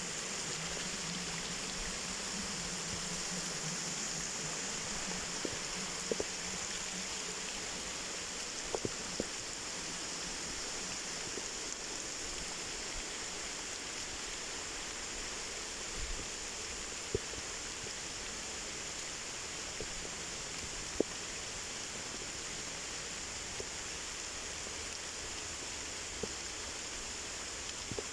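Waterfall: a steady rush of falling water, with a few short sharp ticks scattered through it.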